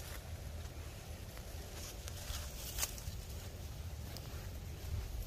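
Faint rustling of long plant leaves as a husky noses and steps through them, with a few light ticks over a low steady rumble.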